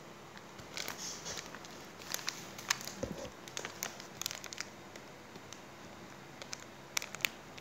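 Shiny red decorative paper crinkling in irregular bursts as it is handled and pressed along the edge of a cardboard box, with scattered light clicks.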